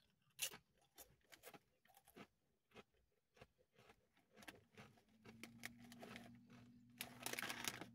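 Doritos tortilla chips crunching as they are bitten and chewed, a string of short sharp crunches. Near the end the plastic chip bag crinkles briefly, and a low steady hum sounds through the second half.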